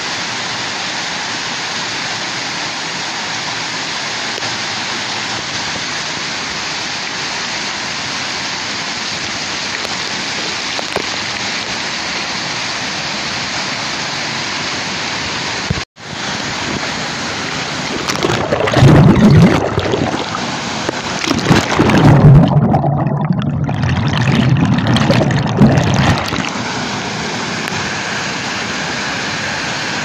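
Waterfall: a steady rush of water pouring onto rocks and a shallow stream. After a brief dropout about halfway, a closer cascade is heard, with several seconds of much louder, uneven low rumbling.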